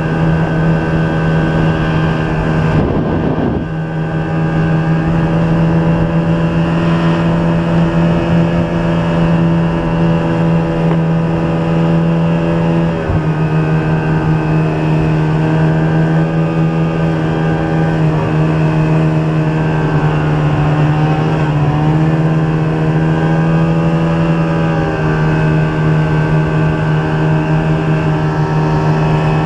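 Snowmobile engine running steadily at cruising speed, an even drone with a strong low tone. It eases briefly about three and a half seconds in and again around thirteen seconds, then holds steady.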